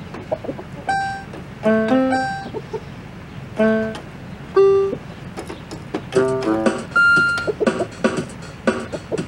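Toy electronic keyboard sounding scattered, irregular single notes and occasional clusters of several notes at once, set off at random as roosters peck at its keys.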